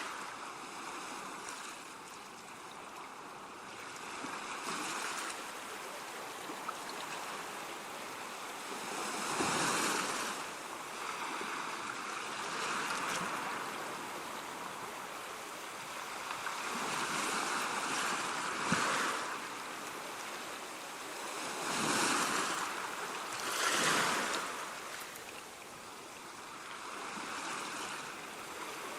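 Ocean waves breaking on the shore, a steady wash that swells and falls back every few seconds, the biggest surges about a third of the way in and again near the three-quarter mark.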